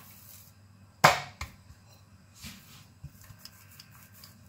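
Bread dough being worked with a wooden rolling pin on a granite countertop: one sharp thump about a second in, a smaller knock just after, then a few faint taps and rubbing.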